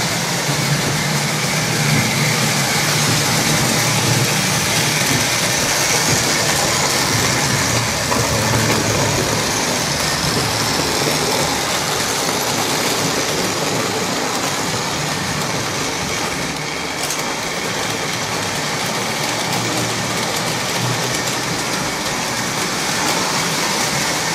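Model trains running on the layout's track: the steady whir of their small electric motors and wheels on the rails, with a low hum that is stronger in the first half.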